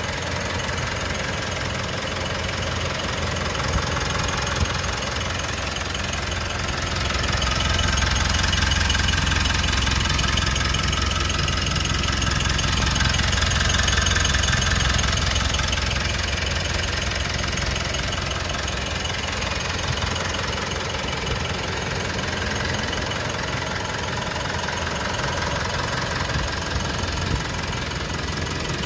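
Mitsubishi Pajero Sport's 4N15 2.4-litre four-cylinder turbodiesel idling steadily. It grows somewhat louder for several seconds in the middle, then settles back. The owner describes it as normal, smooth and dry, running on bio solar biodiesel blend.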